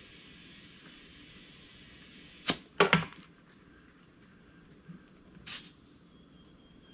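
Air inflator chuck on a tractor tire's valve stem giving short, sharp bursts of air, three in quick succession about two and a half seconds in and another about two seconds later, over a faint steady hiss. The tire is being aired up from 20 toward 30 PSI.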